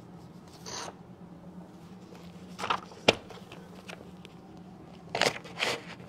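Rustling and scraping handling noise as things are picked up and gathered at a lectern, in a few short bursts, with one sharp click about three seconds in. A faint steady hum runs underneath.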